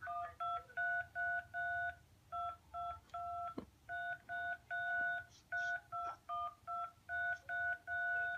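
Smartphone keypad touch-tones (DTMF) pressed one after another to play a tune on the in-call dial pad: a string of short two-pitch beeps, some held a little longer, separated by brief gaps.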